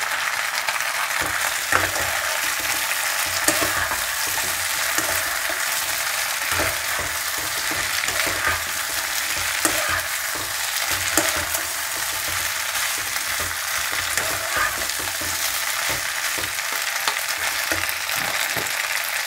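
Fried battered cauliflower sizzling in sauce in a pan on a gas flame, stirred and tossed with a wooden spatula that scrapes and knocks against the pan in short, irregular clicks over a steady sizzle.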